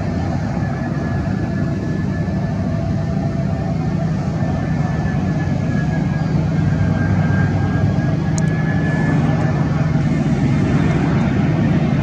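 Jet engines of an Airbus A320-family airliner on final approach with its gear down: a steady low rumble that slowly grows louder as the plane comes nearer.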